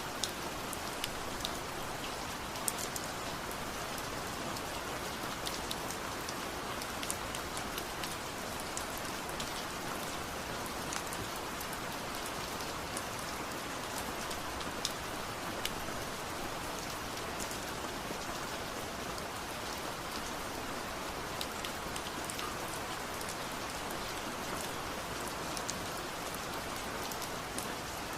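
Steady rain falling on hard surfaces, an even hiss with many individual drops ticking and splatting close by.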